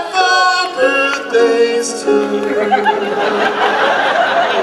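Music with singing: held sung notes, then a rougher, more jumbled stretch of voices in the second half.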